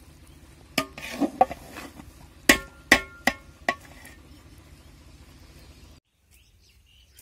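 A metal ladle knocking and scraping against a large aluminium pot while cooked biryani is stirred and scooped: about seven sharp, ringing clanks in the first four seconds, the loudest two around two and a half and three seconds in.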